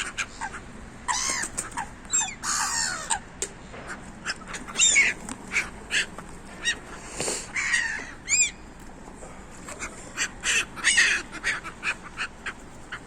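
Seagulls calling: many short cries at irregular intervals, overlapping at times.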